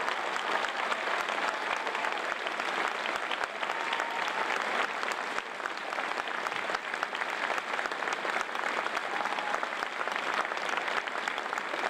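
Large audience applauding steadily at the close of a performance.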